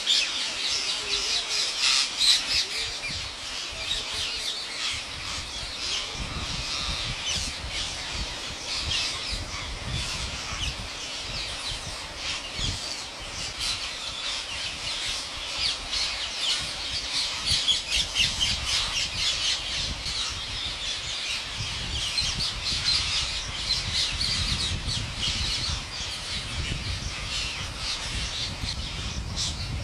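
A large flock of rose-ringed parakeets screeching together: a dense, unbroken chorus of overlapping high-pitched calls, with a low rumble underneath that grows heavier in the last third.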